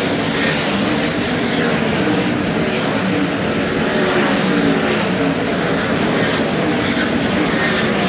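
A field of World of Outlaws 410 sprint cars racing on a dirt oval, their V8 engines running hard together at full throttle, the pitch of several engines wavering and overlapping as they pass through the turns.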